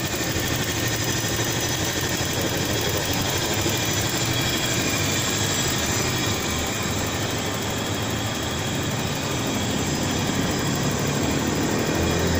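2004 Toyota Kijang Kapsul engine idling steadily, heard up close in the open engine bay.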